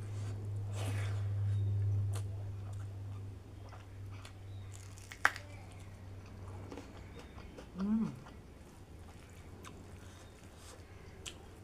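An airplane passing overhead, a low drone that swells about two seconds in and fades away by about three and a half seconds. Under it and after it, chewing and the small wet clicks of eating rice by hand, with one sharp click about five seconds in.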